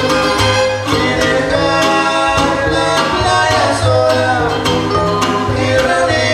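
Live trío huasteco music: a man singing over strummed jarana and guitar.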